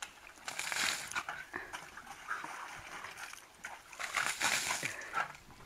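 Water thrown from a bucket splashing over a dog, loudest about four seconds in.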